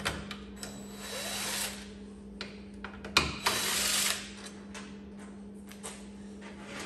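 Cordless screw gun backing out door bolts in two short runs, the first rising in pitch as the motor spins up, with light clicks between.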